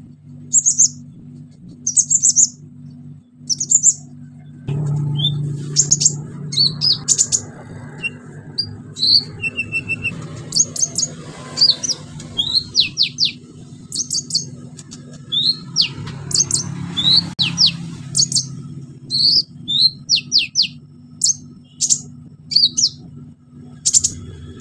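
Male sunbird (kolibri ninja) singing vigorously: rapid bursts of sharp, high chirps and short trills, over a steady low hum. A rushing background noise comes in about five seconds in.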